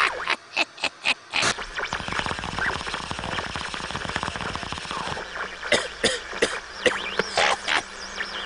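Rapid crackling and rattling: a few sharp clicks, then a dense run of fast clicks that thins out to separate clicks after about five seconds.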